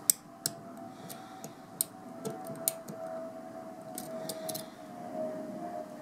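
Irregular small metallic clicks and ticks of a lock pick working the wafers of a Keysafe wafer lock held under a tension wrench. The sharpest click comes right at the start, over a faint steady hum.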